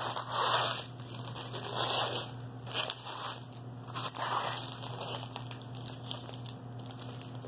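Small plastic packets of diamond-painting drills crinkling and rustling in several short bursts as a strip of them is handled and laid out on a table.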